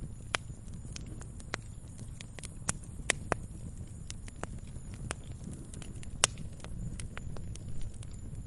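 Wood campfire crackling: irregular sharp pops and snaps over a low, steady rumble, with the loudest pops about three and six seconds in.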